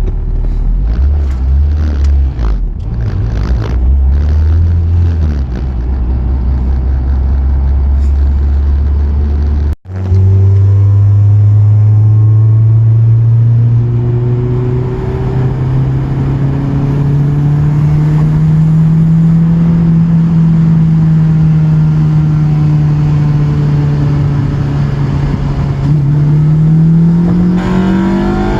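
Acura TSX 2.4-litre K24A2 four-cylinder engine with a cold air intake, running under way. For the first ten seconds it holds a steady low note. After a sudden break it pulls up through the revs, rising slowly and then climbing steeply near the end.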